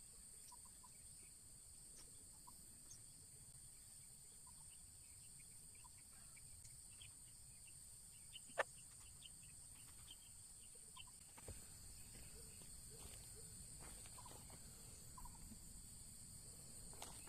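Faint, steady high insect drone, like crickets, with scattered faint short chirps and a single sharp click about halfway through.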